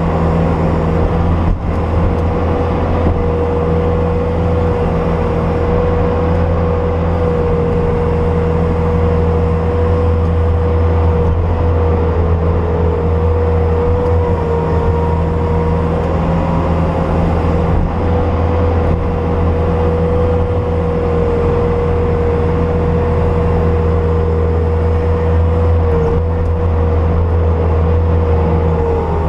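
Bobcat S250 skid steer's diesel engine running steadily, a low drone with a steady whine above it whose pitch dips briefly a few times.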